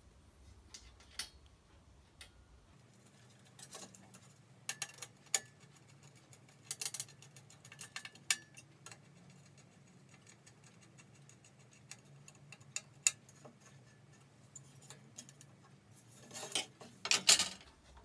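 Scattered small metallic clicks and clinks as aluminium angle pieces and small machine screws are handled and set down on a steel-topped workbench, with a louder clatter of several knocks near the end.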